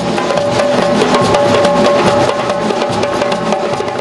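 A group of djembe hand drums playing a quick, dense rhythm, with a few held notes of music over the drumming.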